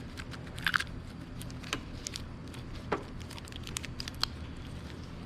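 Scattered sharp clicks and light crinkling from parts and packaging being handled, over a steady low hum.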